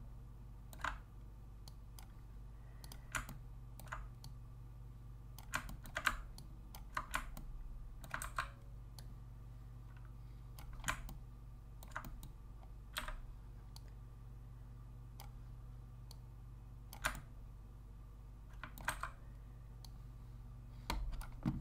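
Irregular clicks of a computer mouse and keyboard, one at a time or in quick pairs, every second or so. A steady low hum runs underneath.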